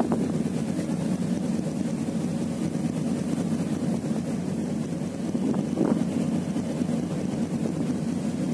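Passenger ship's engines running with a steady low drone, mixed with the rush of the hull moving through the water.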